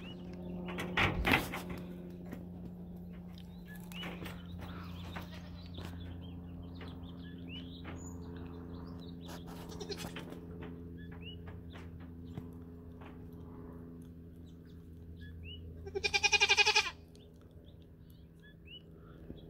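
Nigerian Dwarf goats bleating: a loud, wavering bleat about a second long near the end, and a shorter loud sound about a second in. Faint bird chirps and a steady low hum underneath.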